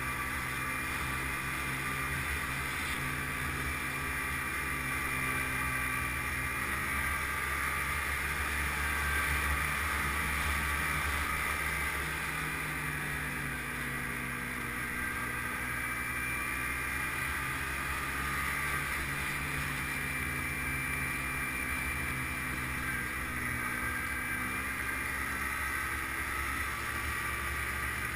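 Snowmobile engine and track running steadily at trail speed, heard from on the sled. The engine's pitch eases down and then climbs again about halfway through.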